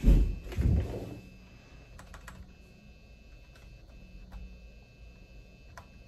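Two dull thumps in the first second, then a few faint, scattered clicks of computer keyboard or mouse input over a steady faint machine hum with a thin high whine.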